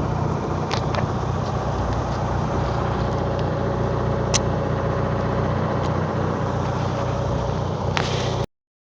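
Backhoe engine idling steadily, with a few faint clicks, cutting off abruptly near the end.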